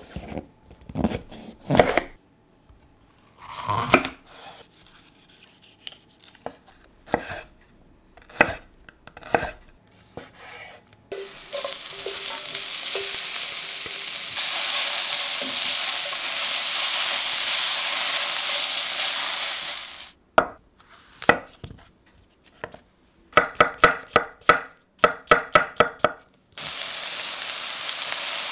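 Chef's knife cutting a red pepper on a wooden chopping board, a run of separate chops. Then the sliced pepper and onions sizzling in olive oil in a stainless steel sauté pan. Near the end come quick knife strokes at about four a second, then sizzling again as sliced chestnut mushrooms go into the pan.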